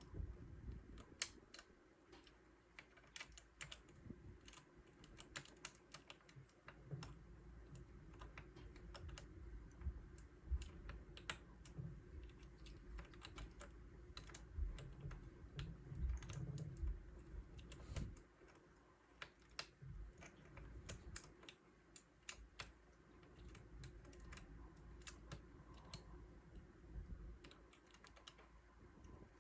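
Lock pick and tension wrench working the wafers of an arcade lock: many small, irregular metallic clicks and scrapes, with low handling knocks.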